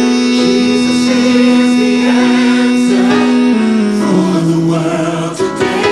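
Gospel song: singing with a choir over instrumental backing, with a long held note that steps down about three and a half seconds in.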